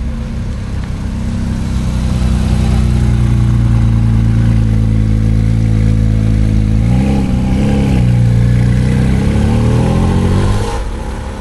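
A car's engine and exhaust running loud and low with a steady note. About seven seconds in the pitch briefly jumps and wavers, then it climbs steadily as the car accelerates, and drops away near the end.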